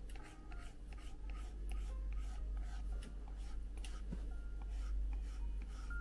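Apple Pencil tip tapping and stroking on an iPad's glass screen while drawing: a quick run of light ticks and short rubbing strokes, over a steady low hum.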